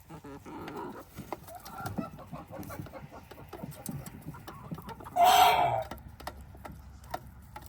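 A flock of chickens clucking while feeding, with many short sharp ticks of beaks pecking, and one loud call about five seconds in.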